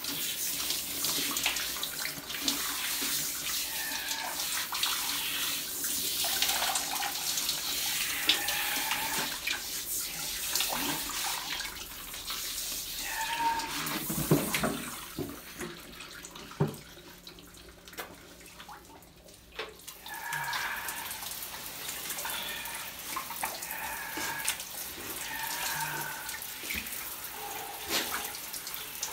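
Handheld shower head spraying water over a beagle being washed in a plastic tub, a steady hiss that stops for a few seconds about halfway through and then starts again.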